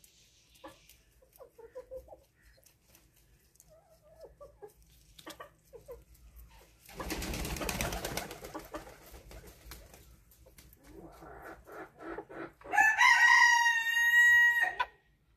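A rooster crows once near the end, one loud call of about two seconds. About halfway through there is a brief rush of noise, and faint scattered clicks run between.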